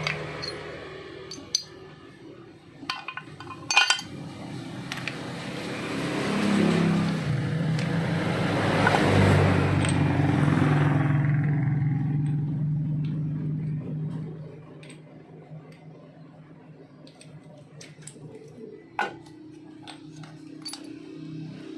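Metal tools or parts clinking a few times over a steady low hum. In the middle a louder rushing noise swells up and dies away.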